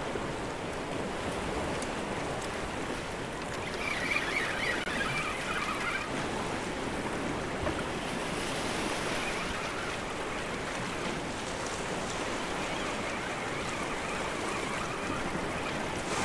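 Sea surf washing over a rocky shore, a steady rushing wash of waves. A brief higher-pitched chittering sound comes in about four seconds in.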